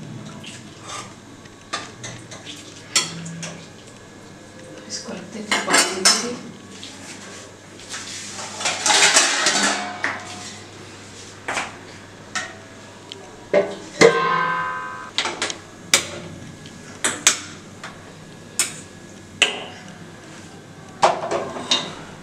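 Steel ladle clanking and scraping against a stainless steel kadhai while stirring a curry, in a run of separate clanks. A steel plate lid is handled, and one clank a little past halfway rings on with a metallic tone.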